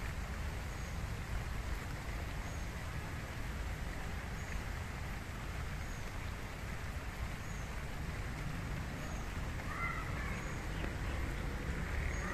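Steady rain with an even hiss and a low rumble underneath. A faint high chirp repeats about every second and a half, and a bird calls a few short notes near the end.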